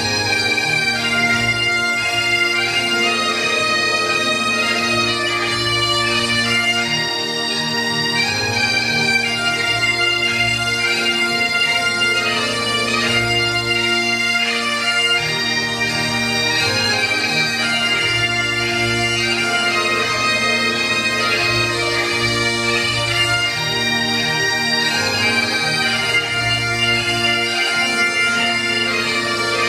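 Great Highland bagpipes, several played together: the steady hum of the drones under a continuous chanter melody, with no break.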